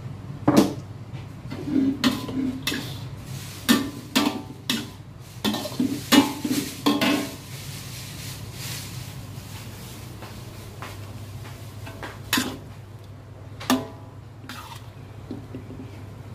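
Metal wok spatula scraping and clanging against a wok while stir-frying noodles. The quick, irregular strikes come thickly for the first seven seconds, then only a few more, over a steady low hum.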